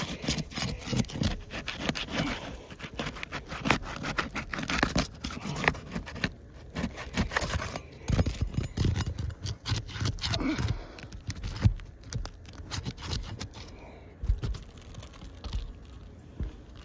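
Roof shingles being pried and worked loose by hand, with irregular scraping, clicking and crackling as their sealed edges are broken free.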